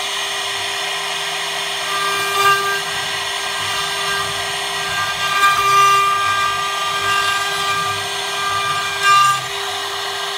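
CNC router's 1.5 kW spindle running steadily as its bit carves into wood, with higher whines coming and going as the head moves. It gets louder for moments about two and a half, five and a half and nine seconds in.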